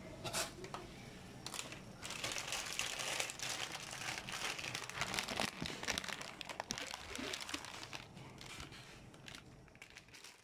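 Crinkling of a plastic Shin Ramyun noodle packet being handled, a dense crackling that comes in a few sharp crinkles first, then runs steadily from about two seconds in and fades near the end.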